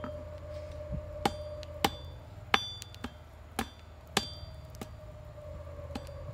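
Hand hammer striking hot steel on an anvil, about ten blows at uneven spacing of roughly half a second to a second. Several blows ring brightly off the anvil.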